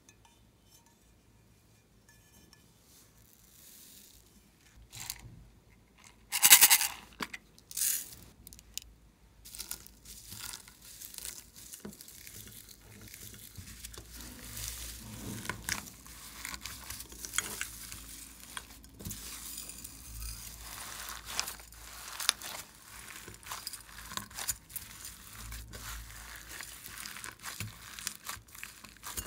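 Glossy slime being pressed and kneaded by hand into polystyrene foam beads and glitter in a glass tray: a steady crackling, crinkling squish. A few loud sudden noises come about six to eight seconds in, before the kneading settles into a continuous crackle.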